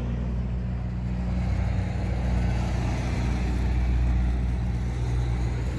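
Fire engine's diesel engine idling steadily, a low even rumble that grows slightly louder midway.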